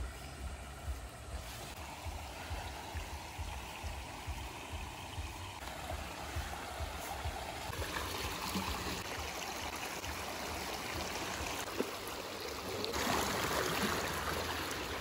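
Shallow rocky stream running over stones, with splashes from bare feet wading through it; the rushing water grows louder near the end.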